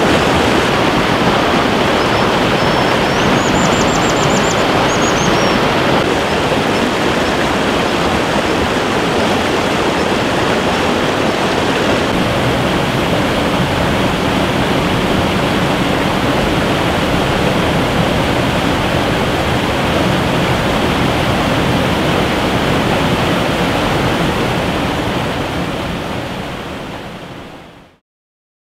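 Steady rushing of a waterfall and river cascading over boulders, with a brief high-pitched bird call about three seconds in. The water sound fades out near the end.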